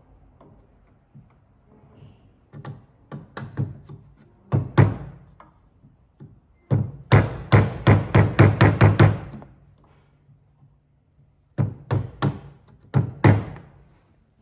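Bevel-edge chisel being struck to chop down into a timber dovetail socket: sharp wooden knocks in groups, with a quick run of about nine blows, roughly four a second, a little past the middle and four more near the end.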